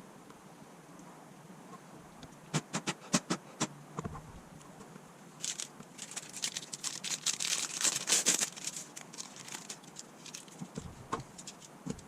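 Handwork on a smartphone during repair: a handful of sharp clicks and taps, then several seconds of dense crinkling and scratching, loudest about eight seconds in, followed by scattered small ticks.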